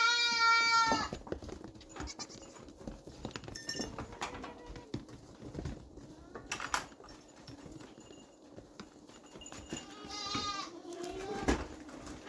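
Livestock bleating: one loud, steady-pitched call at the start lasting about a second, and a fainter call about ten seconds in, with scattered knocks in between.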